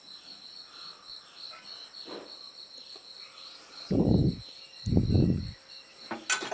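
Insects chirping: a steady, high-pitched, pulsing trill. Two dull low thumps about four and five seconds in, and a light clink near the end.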